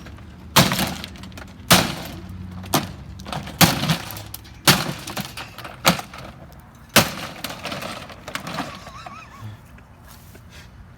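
A dishwasher being smashed with a hammer: about seven hard blows roughly a second apart, with breaking and cracking, then quieter after about eight seconds.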